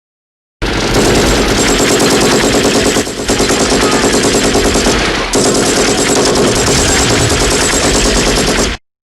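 Sustained rapid automatic gunfire, starting about half a second in and running for about eight seconds, with a brief break near the third second. It cuts off suddenly.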